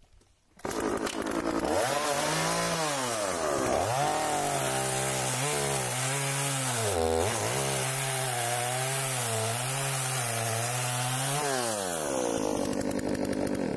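Two-stroke gas chainsaw running at full throttle while cutting through a log. The engine pitch wavers and sags twice as the chain bogs in the wood, then drops as the saw comes through the cut near the end.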